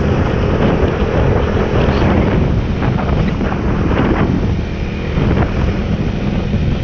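A motorcycle riding at steady speed, its engine running under loud wind buffeting on the microphone.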